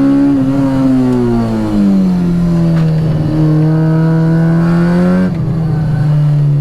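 K20-swapped Honda Integra Type R's 2.0-litre inline-four engine on a track lap. The revs fall away over the first two seconds, then climb steadily under acceleration. A brief break just after five seconds fits a gear change, and the engine runs on at steady revs after it.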